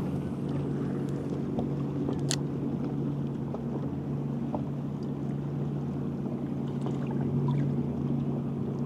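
A boat motor running steadily with a low, even hum. A single sharp click comes about two seconds in.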